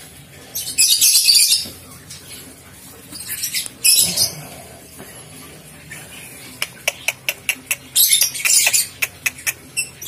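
Dry grass nesting material in a wooden nest box rustling in short scratchy bursts as a hand feels through it, with a run of quick sharp clicks in the second half.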